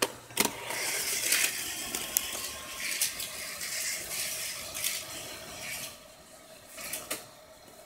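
A couple of sharp plastic clicks as a die-cast toy car is taken off a plastic playset. Then several seconds of rattling and scraping that fade about six seconds in.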